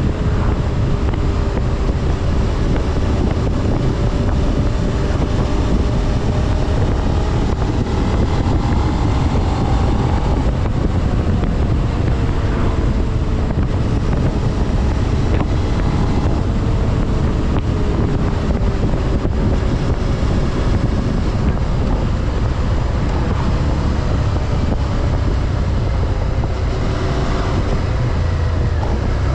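Stock Suzuki SV650's 645 cc V-twin, restricted to 47.5 hp for the A2 licence, running under way on the road, its pitch drifting slowly up and down with engine speed, under heavy wind noise on the microphone.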